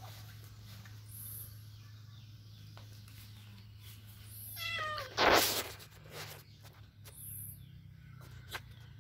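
A feral cat meows once about halfway through, a short pitched call, followed immediately by a brief, loud, harsh burst of noise.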